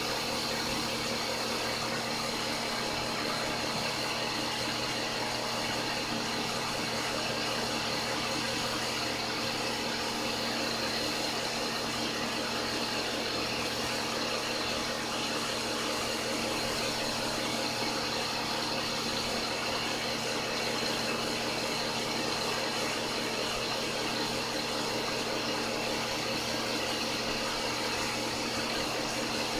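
Steady machine hum of a homemade car-wash pump system running, with several held tones over a hiss.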